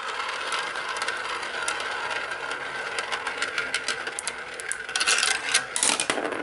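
Glass marbles rolling and spinning around plastic marble-run funnels and chutes: a steady rolling hiss with many sharp clicks as marbles knock against the track and each other, and a louder clatter about five seconds in.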